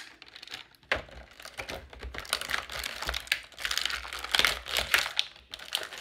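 Clear plastic blister packaging crinkling and clicking as it is handled and pried apart. From about a second in, a low rumble of handling sits under it.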